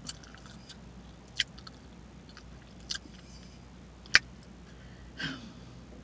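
Mouth smacks: a handful of sharp, separate clicks spaced a second or more apart, the loudest about four seconds in, then a short sound falling in pitch about five seconds in.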